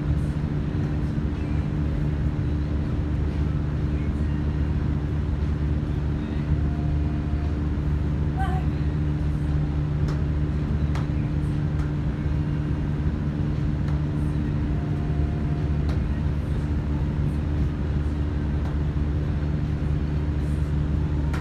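Steady low machine hum that runs unchanged, with a few faint knocks scattered through it.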